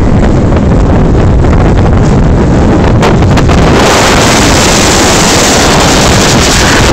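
Storm wind buffeting the microphone, with a loud low rumble. About four seconds in, a brighter rushing hiss swells up over it and stays.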